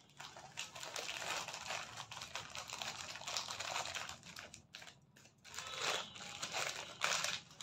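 Thin plastic polythene packaging crinkling and rustling as it is handled, coming and going unevenly, with a brief lull about five seconds in.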